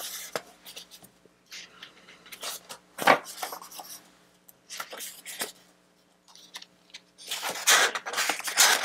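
Thin pages of a paper pad being turned and smoothed flat: paper rustling in short bursts, with a sharp crackle about three seconds in and a longer, louder rustle near the end.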